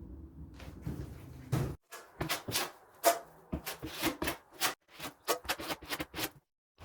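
A quick run of short scrapes and knocks, about a dozen in four seconds, from a drywall knife working a stiff batch of setting-type joint compound, after a faint low hum that stops abruptly about two seconds in.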